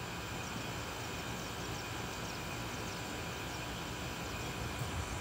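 Steady outdoor background noise: a low, even rumble with a few faint high chirps.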